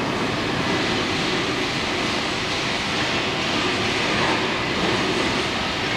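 Steady mechanical running noise, an even rumble and hiss with faint steady tones, without separate knocks or changes.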